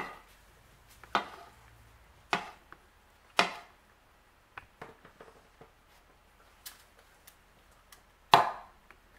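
Metal spoon knocking against a plastic mixing bowl and a metal muffin tin while scooping cupcake batter into paper liners. There are a few sharp knocks about a second apart, lighter taps in between, and the loudest knock comes near the end.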